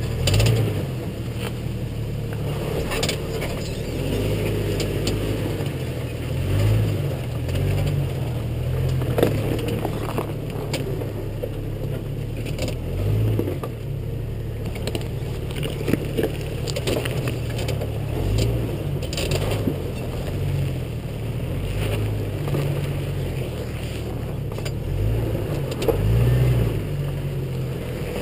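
Jeep Cherokee XJ crawling slowly over rocks: a low engine rumble that swells and eases every few seconds, with tyres crunching and scraping on rock and scattered sharp knocks.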